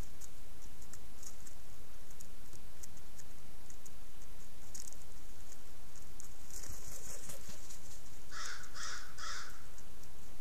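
A crow cawing three times in quick succession near the end, harsh calls about a third of a second apart. A brief rustle comes a little before them, over faint scattered clicks and a steady low hum.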